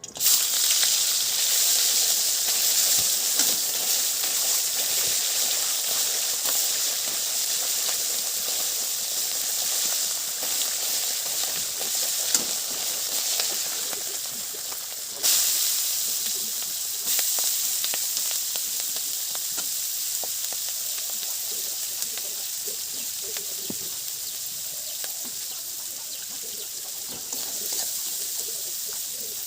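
Food frying in hot oil in a pan, a loud sizzle that starts suddenly as the food goes in, then slowly settles. It surges again about halfway through.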